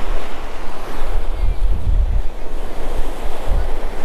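Ocean surf washing on the beach, with wind buffeting the microphone in a low rumble that gusts hardest around the middle and again near the end.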